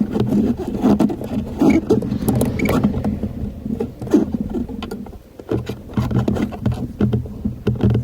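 Irregular clicks, rattles and scraping from hands working on the parking brake cable hardware and its tensioner clip, over a steady low hum that dips briefly about halfway through.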